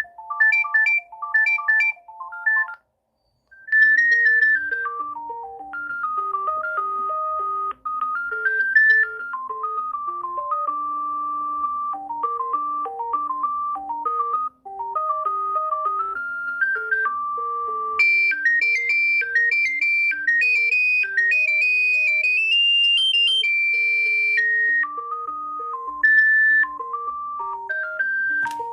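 Alcatel OT-153 mobile phone playing its built-in ringtones. A fast, repeating two-note trill ends about three seconds in, and after a short pause a new ringtone starts: a bright melody of distinct notes over a lower accompaniment, which climbs higher past the middle.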